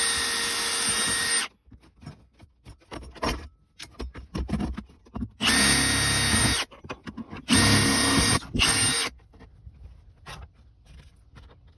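Power drill running in three short bursts, with a steady whine, match-drilling bolt holes through the hinge reinforcement bracket into the plastic center console. Clicks and handling noises fall between the runs.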